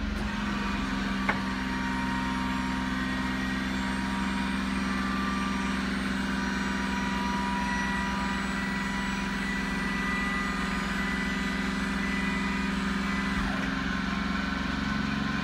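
Suzuki Carry mini truck's hard-dump hydraulic lift running: a steady whine with the engine running as the big cylinder raises the heavy-duty bed. A single click sounds about a second in.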